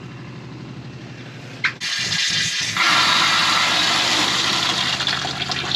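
Small 12 V water pump running with a steady hum, then about two to three seconds in a loud gush of water from the opened test tap into a bucket, with the pump still running underneath.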